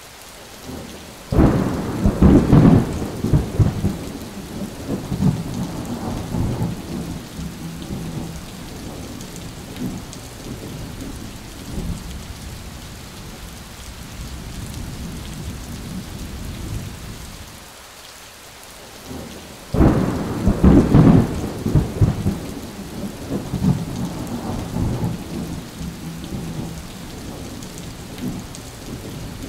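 Steady heavy rain with two claps of thunder, one about a second in and the other about twenty seconds in, each starting suddenly and rumbling away over several seconds.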